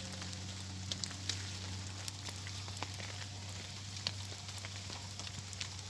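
Small campfire of bark and thin twigs burning, with scattered sharp crackles and pops over a steady hiss and a faint low hum.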